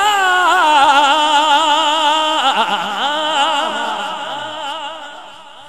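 A naat reciter's voice through a sound system, holding one long wavering note with heavy echo. About two and a half seconds in the voice stops, and its echoes trail on, fading away toward the end.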